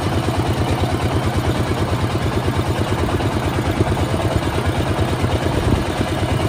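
The engine driving a sugarcane juice crusher, running steadily with a fast, even low pulse.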